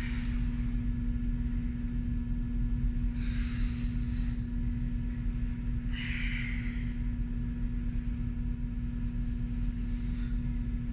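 A woman breathing out hard twice while exercising, about three seconds in and again about six seconds in, over a steady low hum.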